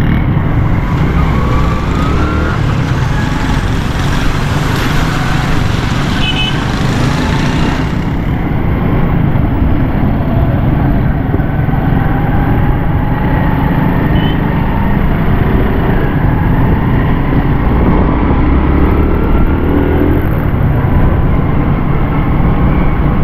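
Motorcycle engine running under way, with wind rushing over the helmet microphone and tyres hissing on the wet road; the hiss is strongest for about the first eight seconds.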